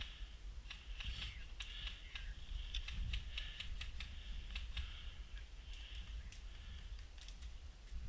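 Airsoft gunfire in a firefight: irregular sharp clicks and snaps of shots, some in quick runs, with no steady rhythm.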